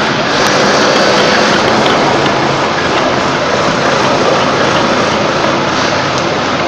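Heavy workshop machinery running with a loud, steady drone and hiss that does not change.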